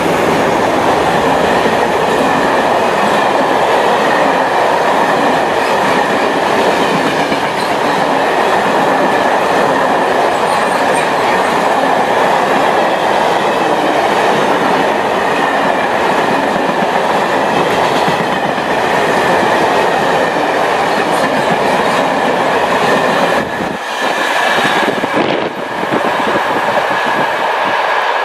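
Freight train wagons rolling past at close range: a loud, steady noise of steel wheels running on the rails, with a steady high-pitched ringing tone through it. The sound drops briefly twice near the end.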